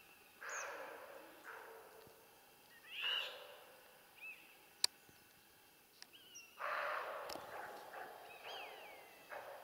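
Roe buck barking: several harsh, hoarse barks, each starting suddenly and trailing off over about a second. Short bird chirps come between them, and there is a single sharp click about halfway.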